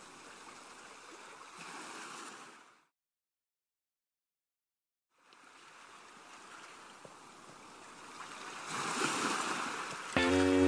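Faint ocean surf, a steady wash of breaking waves, that drops out to complete silence for about two seconds and returns, swelling near the end as music comes in.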